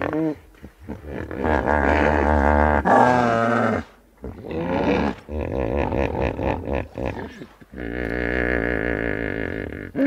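Hippopotamus calling: about four long, deep calls with a wavering pitch, each lasting one to two and a half seconds, with short pauses between them.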